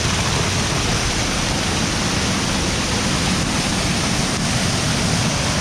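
Waterfall's water rushing in a loud, steady roar-like hiss.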